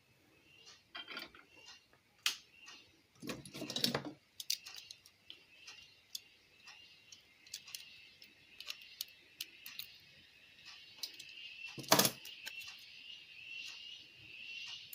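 Scattered small clicks, taps and light handling noises of tools and parts on a workbench, with a rustle about three seconds in and a single louder knock near the end. A faint steady high-pitched tone runs underneath.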